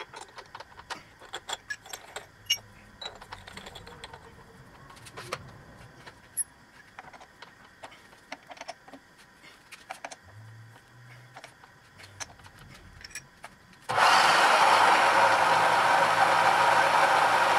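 Scattered metal clicks and clinks as a twist drill is changed in a milling machine's drill chuck with a chuck key. About 14 s in, a loud steady noise starts suddenly: the machine's spindle running a 1-5/8 inch twist drill at 230 rpm into thick steel.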